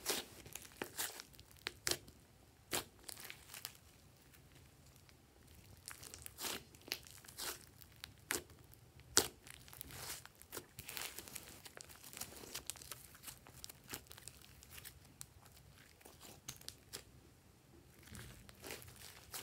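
Hands squeezing and kneading a large mass of slime, giving irregular sticky crackles and pops, with a quieter stretch about four to six seconds in.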